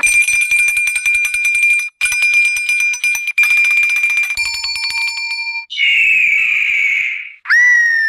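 A string of cartoon sound effects. A bell rings rapidly, a rattling ring on one steady pitch, cut off and restarted twice, then a different ringing with a lower note. After that come a buzzy held tone and, near the end, a whistle-like tone that jumps in and slides downward.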